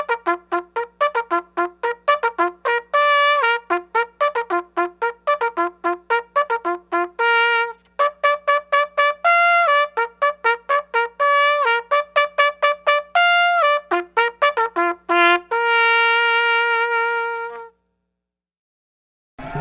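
Solo trumpet playing a fanfare: rapid repeated tongued notes broken by short held notes, ending on one long held note, then silence.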